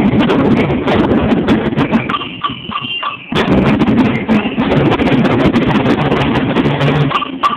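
Marching band drum line playing snare drums and bass drums together in a steady marching cadence. The drumming thins out briefly about two seconds in and comes back in full just after three seconds.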